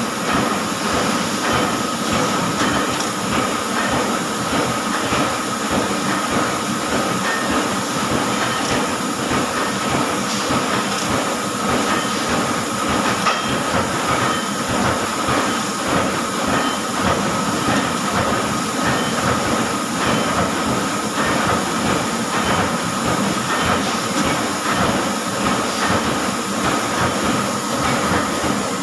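CNC laser cutting machine cutting steel sheet: a steady hiss full of fine crackling, with a steady high whine.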